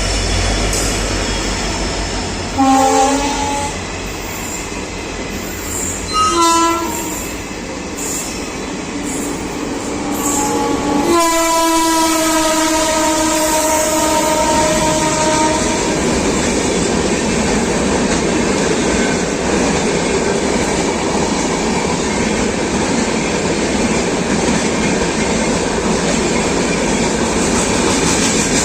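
Indian Railways locomotive horn: two short blasts, then a long blast of about five seconds, as trains cross. Over and after the long blast comes the steady rumble and rail clatter of the trains running past each other.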